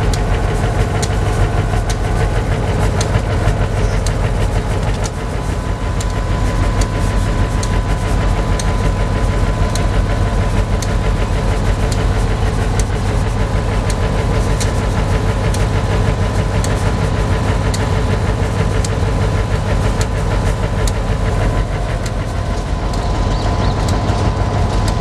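EMD GP38-2 diesel-electric locomotive's 16-cylinder two-stroke diesel engine idling steadily.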